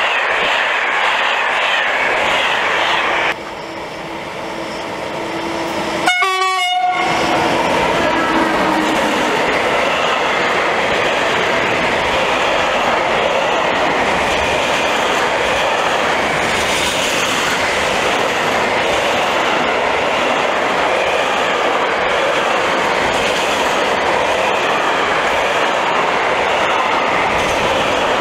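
A passenger train of Corail coaches rushing past. Then, after a cut, a locomotive horn sounds about six seconds in, and a long intermodal freight train of container wagons passes with steady wheel noise and clickety-clack over the rail joints.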